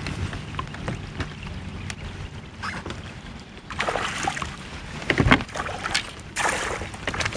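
Water splashing and sloshing against a kayak in several short bursts, with scattered small clicks and knocks, as a hooked bass is fought beside the boat.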